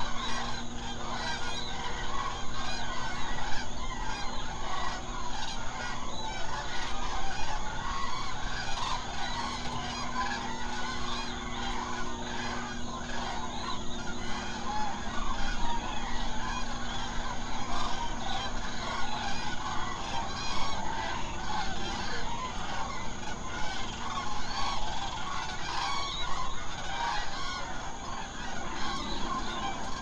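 A huge roosting flock of common cranes calling all at once: a dense, continuous chorus of overlapping trumpeting calls.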